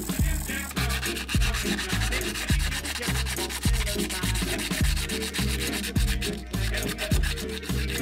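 Hand sanding of a stainless steel folding-knife liner with sandpaper, a continuous scratchy rubbing. Background music with a steady beat and bass line plays throughout.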